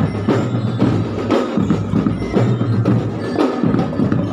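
Music led by percussion: drum and wood-block-like strikes with bell-like notes, keeping a steady marching beat.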